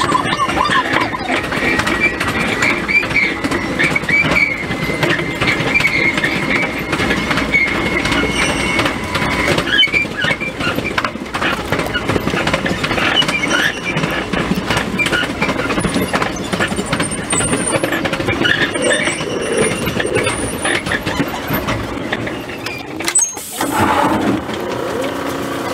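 Choshi Electric Railway 3000-series electric train heard from inside the front car, running at four times normal speed. A rising motor whine comes first, with rapid clatter and short squeals from the wheels on the rails. A sudden break comes a little before the end, and then a steadier humming sound as the train stands at a station.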